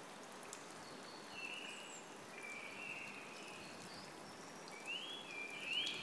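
Faint, light rain falling on forest foliage, with a few short, thin bird whistles scattered through it; the last two whistles rise in pitch and are the loudest, near the end.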